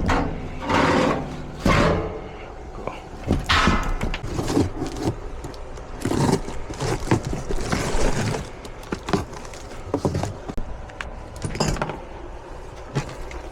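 Irregular clanks, knocks and scraping of metal parts and tools being handled during a furnace blower motor swap.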